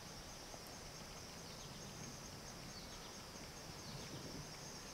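Faint woodland ambience: a steady high-pitched drone of insects, with a few faint, short chirps over it.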